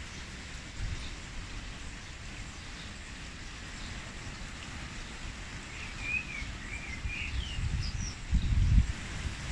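Wind blowing through the garden's trees and shrubs with a steady rustling hiss, and wind rumbling on the microphone in gusts that grow stronger near the end. A bird chirps briefly a few times about six to seven seconds in.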